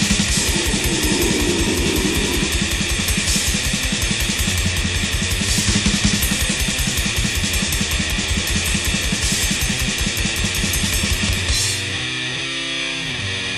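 Blackened old-style Swedish death metal: rapid drumming with cymbal crashes under distorted guitars. Near the end the drums drop out, leaving the guitar playing alone.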